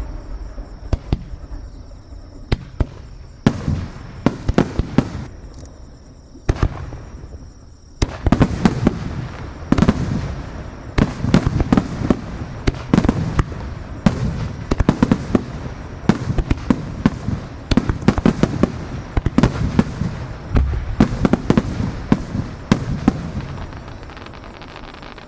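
Grand-finale aerial fireworks bursting: scattered sharp bangs at first, then from about eight seconds in a dense barrage of rapid bangs and crackling, which thins out near the end.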